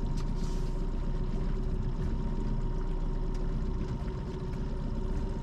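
Boat motor running steadily at trolling speed: an even low rumble with a constant drone and whine held over it.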